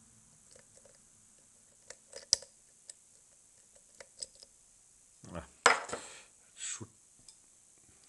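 Lock pick working the pins of a Mul-T-Lock cylinder: a few faint metallic clicks. A bit past halfway comes a louder sharp click and clatter with rustling as the pick is pulled out and laid down.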